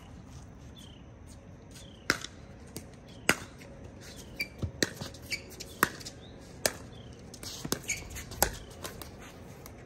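Pickleball paddles hitting a hard plastic ball in a rally: sharp pops roughly once a second, with softer taps between them, and a quicker flurry of hits near the end.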